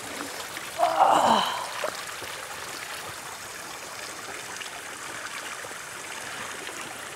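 Water running steadily from a drinking fountain, a continuous trickling stream, with a brief louder noise about a second in.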